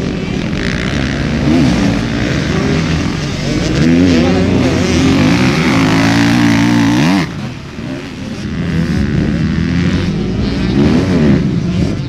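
Dirt bike engines revving hard and unevenly as the bikes churn through deep mud, the pitch climbing and falling with the throttle. The loudest run cuts off suddenly about seven seconds in, then the revs build again.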